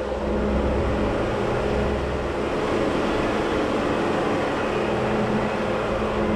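Off-road vehicle driving on a rocky dirt trail: a steady engine drone with tyre and gravel noise. The deepest part of the engine sound eases about two and a half seconds in.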